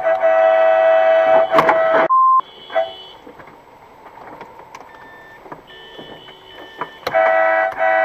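Car horn held in a long blast, a warning to a truck rolling back toward the stopped car. A short single-pitched beep follows about two seconds in, then the horn blasts again about seven seconds in.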